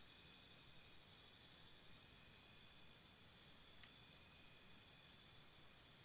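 Crickets chirping faintly in an even pulsing rhythm, about five chirps a second. The loudest one falls silent about a second in and starts again shortly before the end, while fainter chirping goes on underneath.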